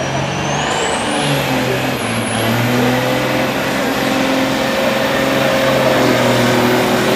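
Diesel semi truck engine running hard under load as it pulls the sled down the track. A high whistle climbs about a second in and then holds over the steady engine note.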